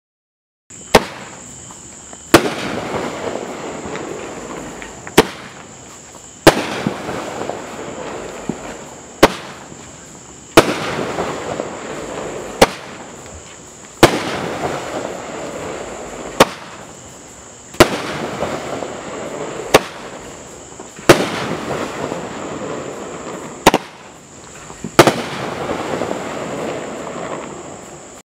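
A 500g multi-shot fireworks cake firing its shots one after another, about every three and a half to four seconds. Each shot is a sharp launch bang followed about a second and a half later by a louder aerial break that trails off over a couple of seconds.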